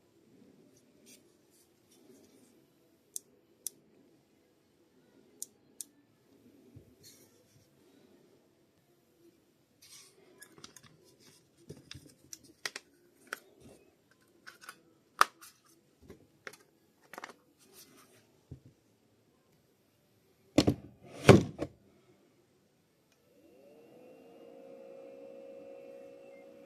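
Small scattered plastic clicks and knocks of a cordless tool battery pack being handled and put together, with two louder knocks close together about three quarters of the way in. Near the end a steady hum starts, rising briefly in pitch and then holding.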